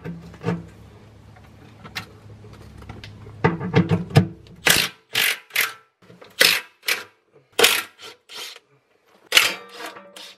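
Cordless drill run in short bursts of a fraction of a second each, about ten in all, backing out the bolts of a mini excavator's steel belly pan. A steady low hum runs underneath until about halfway through.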